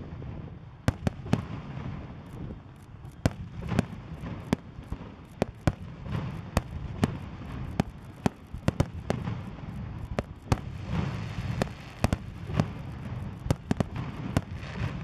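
Aerial fireworks display: an irregular run of sharp bangs and pops as shells launch and burst, a dozen or more, over a steady low rumble.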